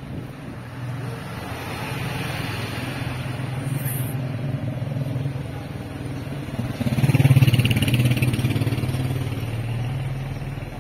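A motor vehicle engine running steadily, growing louder to a peak about seven seconds in and then easing off.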